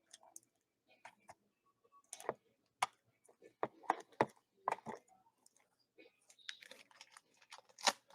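Irregular sharp plastic clicks and light rustling as a trading card is handled and fitted into a magnetic one-touch card holder, the loudest click near the end.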